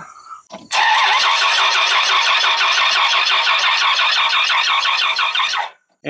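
Dodge Ram 2500's V10 engine cranking on the starter for about five seconds without catching, an even pulsing churn that begins about a second in and stops suddenly near the end. The engine cranks but won't start because the crankshaft position sensor is dead.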